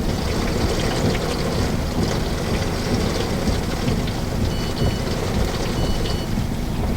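Steady heavy rain with a deep, constant rumble of wind or thunder. Two short, high beeps sound in the second half.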